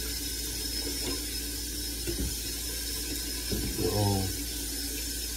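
Steady hissing noise at an even level, with a short murmur of a man's voice about four seconds in.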